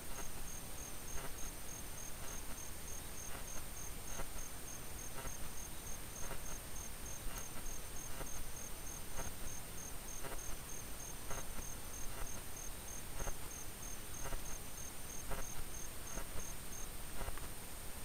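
Cricket chirping steadily at about three chirps a second, stopping near the end, over a constant high hiss, with faint irregular soft clicks now and then.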